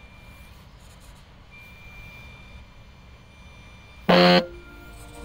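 A smartphone alarm goes off about four seconds in with a short, very loud musical tone. Before it there is only a faint background with a thin high whine on and off, as a small electric RC crawler creeps over rocks.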